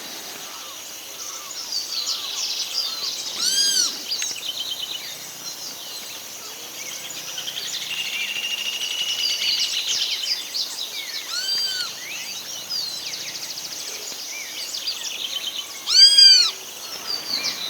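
Several songbirds calling and singing together in a busy chorus, with a long fast trill partway through and a few loud, clear arching call notes, the loudest near the end.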